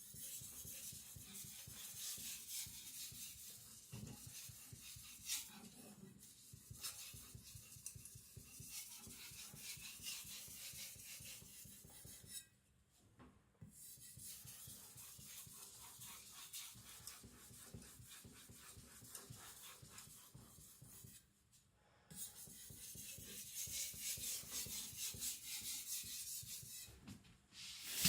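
Steel knife edge scraping in quick light strokes across a wet whetstone, putting a small micro bevel on a thin cleaver edge. The strokes come in three runs, with two brief pauses.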